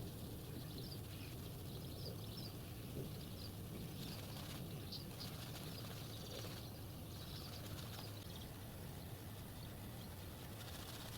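Faint outdoor ambience with small birds chirping on and off over a steady low background hum.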